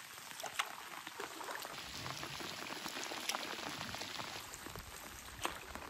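Light rain falling: a soft, steady patter of drops with a few louder drips.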